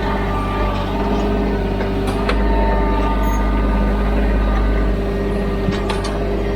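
TYM T313 sub-compact tractor's engine running steadily, with a few sharp clanks from the machine about two seconds in and near the end.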